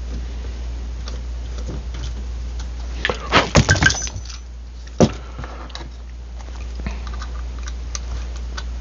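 Small metal hand tools clinking and rattling together: a quick flurry of clinks about three seconds in, then one sharp clink a second later, over a steady low hum.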